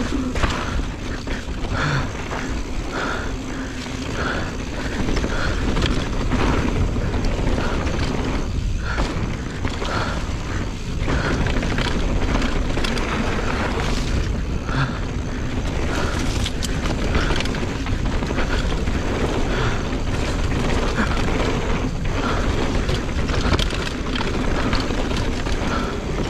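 Mountain bike ridden along a dirt trail: steady wind rumble on the microphone with tyre and trail noise.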